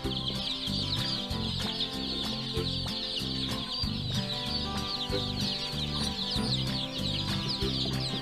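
A brood of baby chicks peeping, many short high cheeps overlapping without a break, over soft background music.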